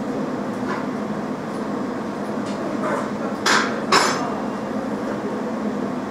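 Jewellery laser welding machine running with a steady hum and hiss while it self-checks and charges. Two sharp knocks come about three and a half and four seconds in.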